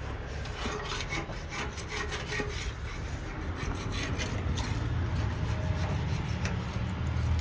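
Irregular rubbing and scraping with scattered short clicks, over a steady low rumble.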